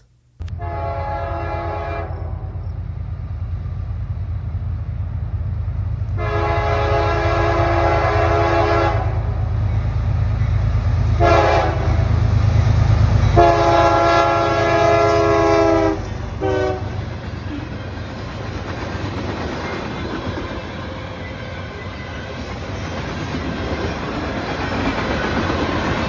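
Diesel freight locomotive passing close by, its air horn sounding several blasts, long ones with a short one between, in the pattern of a grade-crossing warning, over the steady rumble of the engine. After the last blast, about sixteen seconds in, the freight cars roll past with steady wheel clatter on the rails.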